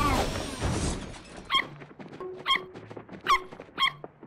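Cartoon sound effects: the hovering jeep's rushing whoosh fades out about a second in. Four short squeaky chirps follow at uneven intervals of about half a second to a second.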